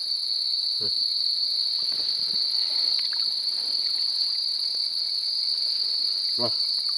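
Crickets chirring in one steady, unbroken high-pitched drone, with two brief low calls about a second in and near the end.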